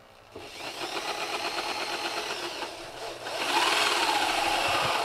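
Electric drill with a 7/8-inch spade bit boring a hole through the side of a plastic 55-gallon food-grade barrel. The motor starts about half a second in with a steady whine and gets louder about three seconds in as the bit cuts through.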